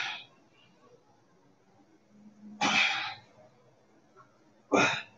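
A man breathing out hard three times while doing crunches: short, noisy bursts of breath about two seconds apart, one per crunch.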